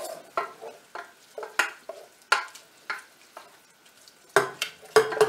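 A wooden spoon stirring in a saucepan, scraping and knocking against the pan several times a second in an uneven rhythm, loudest near the end.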